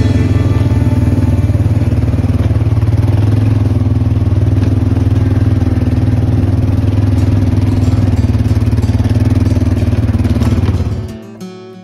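A vehicle engine running steadily at an even speed with a fast, even pulse. It cuts off about eleven seconds in, and plucked guitar notes follow.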